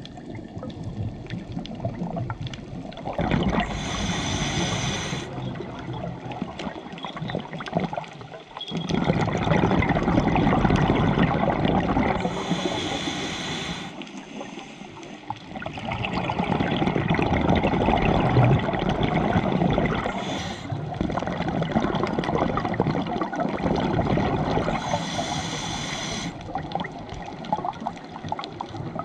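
A scuba diver breathing underwater through a regulator. Four inhalations, each a short hiss, come about every eight seconds, and each is followed by a long stream of exhaled bubbles gurgling.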